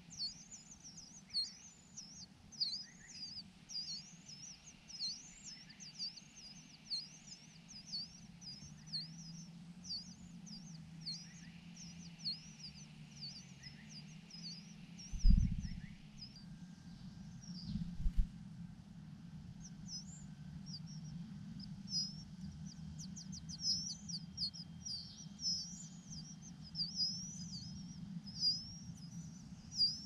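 Large niltava nestlings begging with rapid, repeated high chirps, the sound of chicks calling to be fed. The chirping stops for a few seconds after a low thump about halfway through, then resumes.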